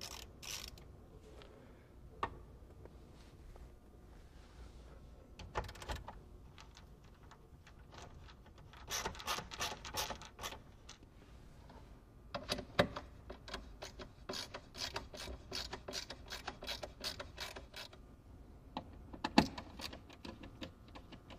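Screwdriver turning screws out of the plastic lower dashboard trim of a Mercedes-Benz W211: faint clicking and ticking of the tool and screws against the plastic. There are scattered single clicks and two runs of rapid clicks, one a little before the middle and a longer one through the middle.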